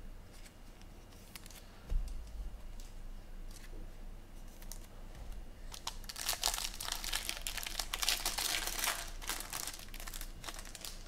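A soft knock about two seconds in, then a foil trading-card pack wrapper crinkling and tearing as it is pulled open by hand, from about six seconds in for some four seconds.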